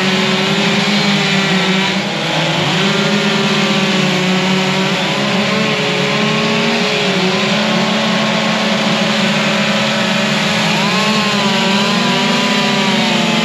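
Two-stroke chainsaw engines held at full throttle, a high steady buzz whose pitch sags briefly now and then as the chains bite into wood.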